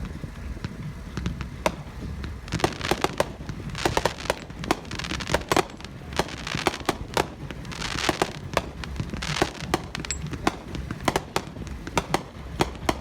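A Brothers finale set of large and XL consumer aerial cakes, several fired together, with shells bursting in rapid succession as sharp bangs several times a second. Patches of crackling are mixed in.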